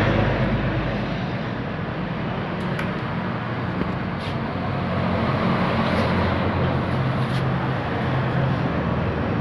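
Motorcycle engine idling steadily, getting a little louder about halfway through.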